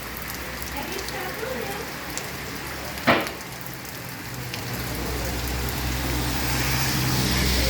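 Steady rain hissing on surfaces, with one sharp knock about three seconds in. A low steady hum builds in the second half.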